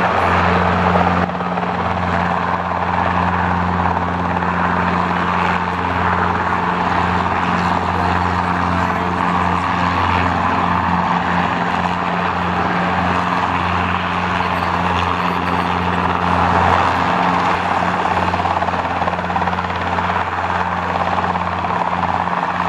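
Light mustering helicopter flying low, its rotor and engine giving a steady drone with a deep hum underneath.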